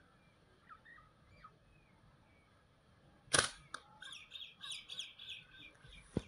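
A slingshot fired: one sharp snap of the released rubber bands about three seconds in, with a smaller click just after. A rapid run of bird chirps follows, and faint bird chirps come before the shot.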